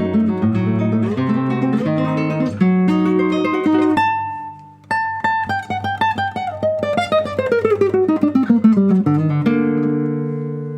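Solo classical guitar playing in rapid tremolo, many quick repeated notes over a bass line. About halfway through the sound briefly fades to a pause with one held note, then a tremolo melody descends steadily in pitch.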